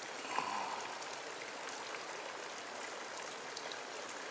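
Water lapping and trickling along a rocky bank, a steady hiss with many tiny drip-like ticks. A single short knock about half a second in.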